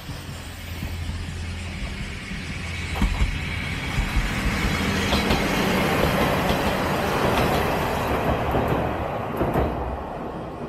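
Yosan Line diesel railcar train crossing a steel girder bridge, passing close and then running away. Its engine drones low and its wheels rumble and clack over the rail joints, building to a peak midway and easing off near the end.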